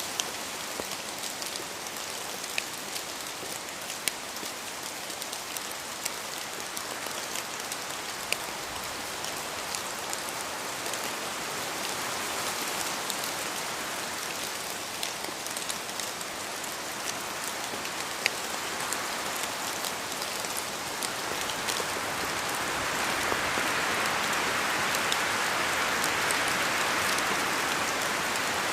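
Steady rain falling, with individual drops ticking sharply above the hiss; it grows heavier about three quarters of the way through.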